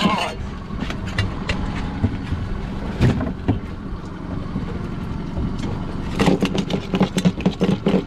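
A boat engine idling steadily, with knocks and clatter on the deck as the lobster is handled and measured. There is a sharper knock about three seconds in and busier clattering near the end.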